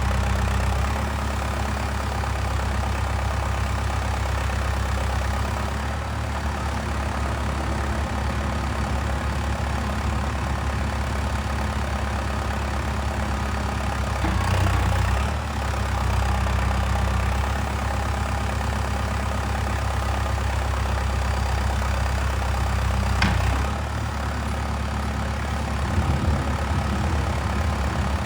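Diesel engine of a Valtra 815 backhoe loader tractor running steadily, with small rises and dips in loudness as it works. A single sharp click stands out near the end.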